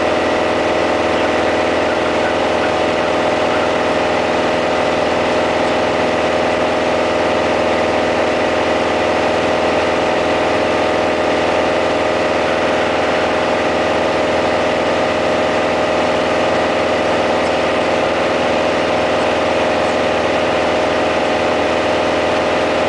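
Piper PA-28-180 Cherokee's 180 hp four-cylinder Lycoming O-360 engine and propeller running steadily in flight, heard from inside the cockpit.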